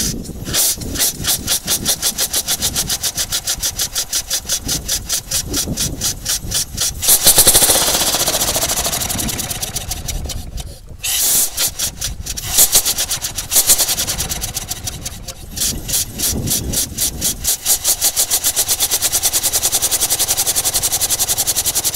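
Homemade steam motorcycle engine warming up on its stand, its exhaust chuffing steam in a fast, even beat of several puffs a second. About seven seconds in a steady steam hiss takes over for a few seconds, and the chuffing breaks off briefly around eleven seconds before picking up again.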